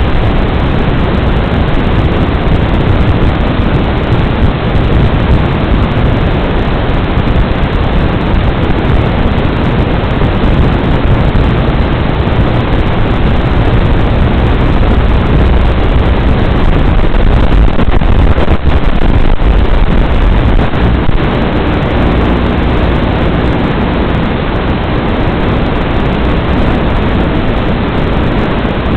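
Steady, loud hiss of static in the audio recorded with an analog FPV video feed. It has no whine or changes in pitch, and it eases slightly about twenty seconds in.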